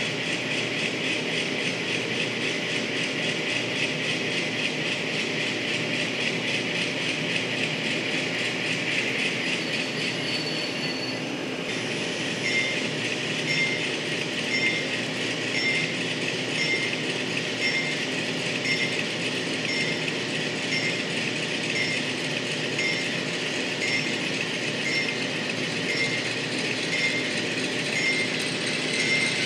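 N-scale model freight train of covered hopper cars rolling along the track: a steady rushing rattle of small wheels on rail, with a light tick about once a second through the second half.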